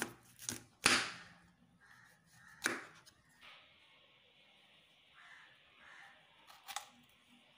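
Kitchen knife cutting broccoli florets off the stalk on a wooden chopping board: a few sharp cuts and knocks, the loudest about a second in, others near three and near seven seconds.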